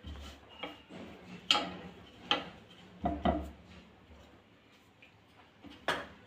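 Scattered sharp knocks and taps on a round wooden rolling board as dough is rolled up into a log by hand, about six in all; the last, near the end, is a knife striking the board.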